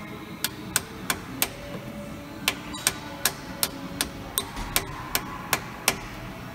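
Hammer striking the rear differential of a 2007 Ford Crown Victoria. There are four sharp metallic taps, then after a short pause about ten more at roughly three a second, each with a brief ring.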